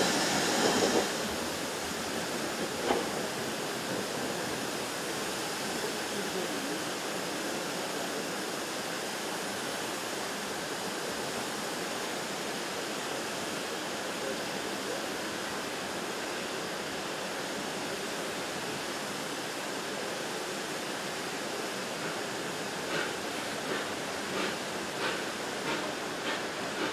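Steam locomotive, the LMS Ivatt Class 2MT tank engine No. 41241, giving off a steady hiss of steam, louder for the first second. About four seconds from the end, short puffs begin, a couple a second.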